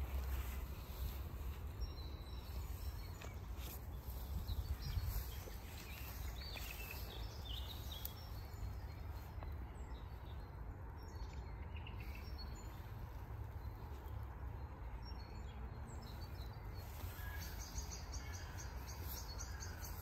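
Outdoor meadow ambience: a steady low rumble with birds chirping now and then, and a quick run of repeated chirps near the end.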